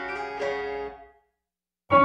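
Instrumental soundtrack music: sustained ringing notes fade out about halfway through, a moment of silence follows, then a loud new chord strikes near the end.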